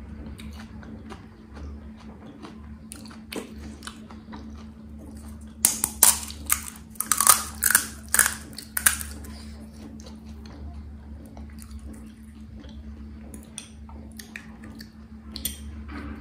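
Quiet chewing, then about six seconds in a run of loud, crisp crackles as fingers break into hollow fried puri (golgappa) shells to open them for filling.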